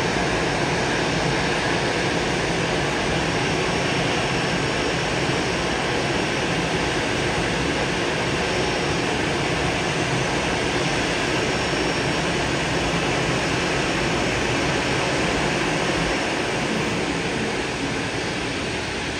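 Jet airliner engine noise, a steady, even rush that eases off slightly near the end.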